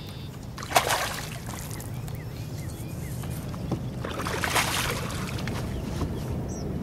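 Splashing of a hooked bass thrashing at the water's surface: a short splash about a second in and a longer one a little past halfway, over a steady low hum.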